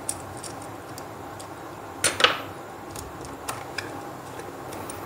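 Small clicks and scrapes of a screwdriver turning the brass terminal screw of a plastic two-way switch to clamp a wire, with a louder clack about two seconds in.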